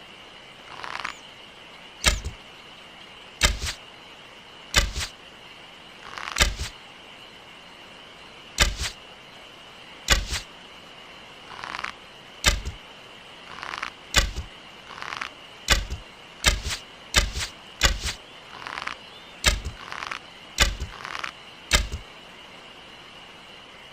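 A bow being shot over and over: well over a dozen sharp snaps at irregular spacing, some with a short swish just before, under a steady high thin tone.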